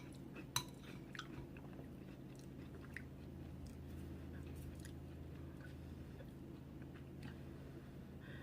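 Faint chewing and wet mouth clicks of a person eating chunky soup, sharpest about half a second in, over a steady low hum.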